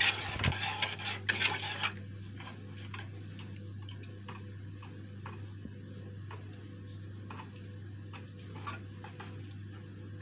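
A utensil stirring béchamel sauce in a metal saucepan: brisk scraping and clatter for about two seconds, then light taps against the pan roughly once a second over a steady low hum.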